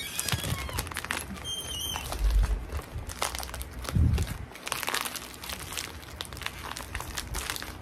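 Plastic packaging crinkling and rustling as hands unwrap and pull at it to get at phone cases, with a couple of dull handling bumps about two and four seconds in.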